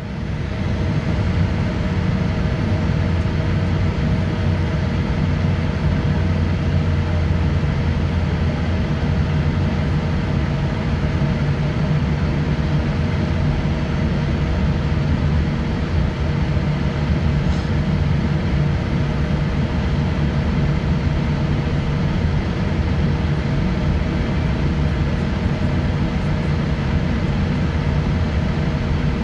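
Cabin noise aboard a Boeing 787-8 Dreamliner taxiing: a steady low rumble from its Rolls-Royce Trent 1000 engines at taxi power, with a couple of faint steady tones above it.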